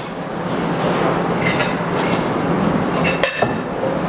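Salad being mixed in a glass bowl: a steady mixing noise, with a spoon clinking against the glass a few times near the end.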